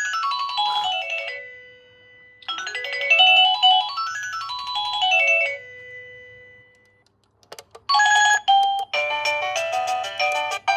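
Electronic doorbell chime playing its melody tunes: a quick run of notes climbing and then falling back, ending on a held tone, heard twice. After a brief silence and a couple of clicks about seven and a half seconds in, a different multi-note tune starts.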